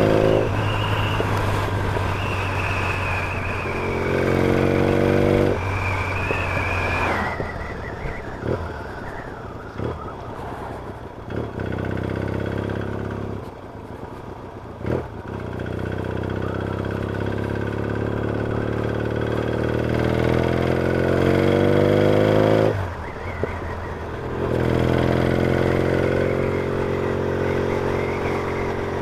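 Yamaha XS650 parallel-twin engine running under way, its pitch climbing as it accelerates and dropping back sharply twice before climbing again. A few sharp clicks or knocks come through in a quieter stretch in the middle.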